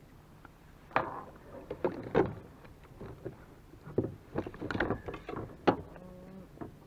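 Knocks and clunks of handling on a plastic fishing kayak: several sharp knocks a second or so apart, with a busier clatter about two-thirds of the way through.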